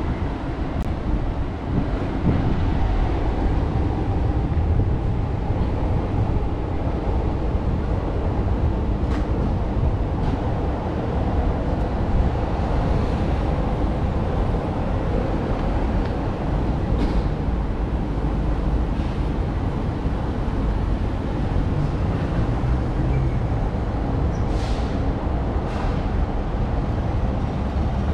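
Steady rumble of city traffic, with a few faint brief clicks.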